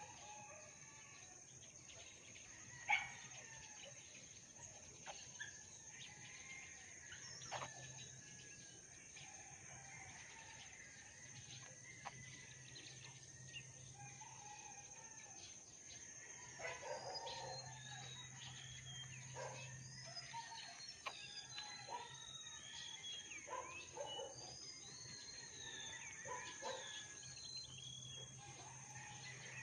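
Faint outdoor ambience of scattered bird calls and short chirps over a steady high whine, with a single sharp click about three seconds in.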